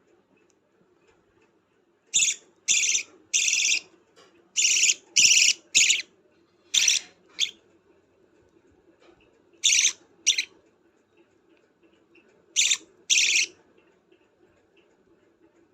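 Budgerigar chick's harsh begging calls during hand-feeding: about a dozen short rasping calls in groups of two or three, starting about two seconds in, with pauses between the groups.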